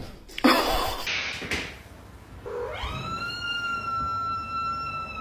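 A sudden burst of noise about half a second in. Then, from about halfway through, a cat's single long meow that rises in pitch and then holds on one steady note for over two seconds.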